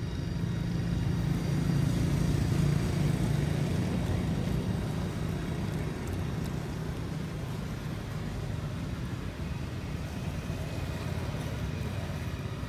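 Low rumble of road traffic, with a motorbike engine passing: it swells over the first few seconds, then eases to a steady background drone.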